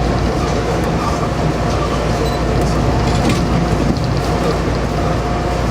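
Shizuoka Railway electric train running, a steady rumble with a faint steady hum held on one note and a few light clicks.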